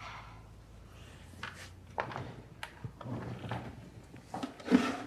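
A few light clicks and knocks with soft rustling, like small objects being handled, over quiet room tone.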